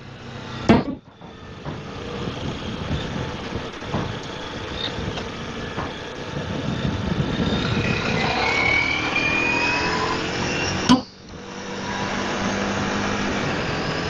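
Ducati Multistrada V4S's V4 engine and wind rush heard from the riding motorcycle, the bike slowing and then accelerating hard, its engine note rising in the second half. Two sharp cracks break through, about a second in and again near eleven seconds.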